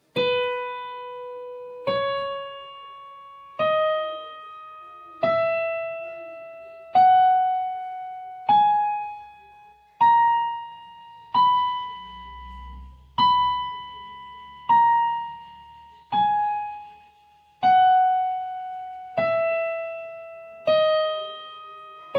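Yamaha digital piano playing the B major scale one note at a time, slowly at two beats per note. It goes up one octave from B, the top B is struck twice, and then it steps back down, each note struck about a second and a half apart and left to fade.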